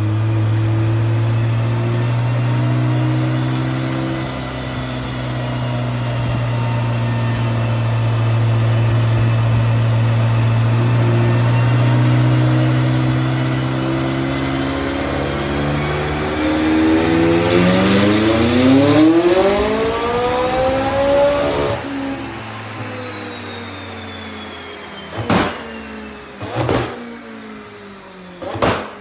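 McLaren 600LT's twin-turbo V8 running steadily, then rising in pitch through a hard pull until the throttle closes suddenly, followed by a falling whine as it winds down and three sharp exhaust cracks (backfires).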